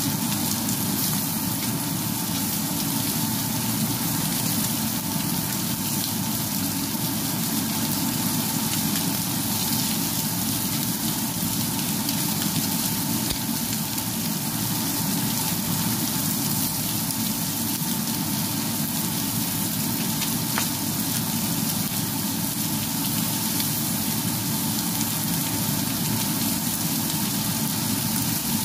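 Lamb chops and garlic sizzling steadily in oil in a frying pan, with a steady low hum underneath.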